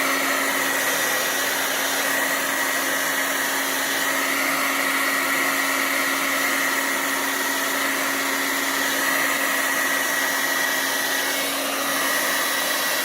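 Blow dryer running steadily on high with the cool button pushed in, blowing across wet pour paint: a constant rush of air with a steady hum and a thin whine under it.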